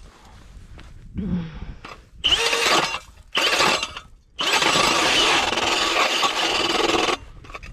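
Cordless drill driving an ice auger into lake ice, a motor whir with grinding and scraping of ice, in stop-and-start bursts: two short runs, then a longer one of nearly three seconds. The drill is struggling, which the owner puts down to a cold battery.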